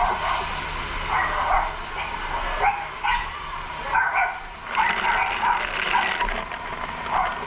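A dog barking repeatedly in short irregular bursts over a steady background rush of noise.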